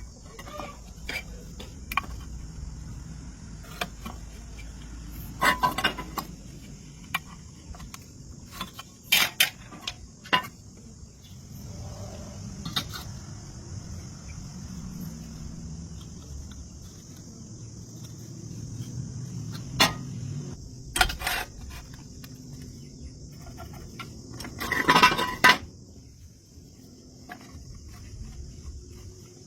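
Irregular metallic clanks and knocks of steel square tubing being handled and tapped, with a cluster of louder clanks near the end, over a steady high hiss.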